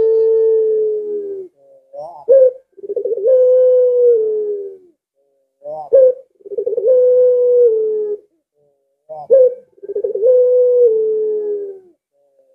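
Domestic ringneck (Barbary) dove, the puter pelung type, cooing: three phrases, each a short rising note followed by a long drawn-out coo held on one pitch and dropping slightly at the end, about one every three and a half seconds. The tail of an earlier coo trails off near the start.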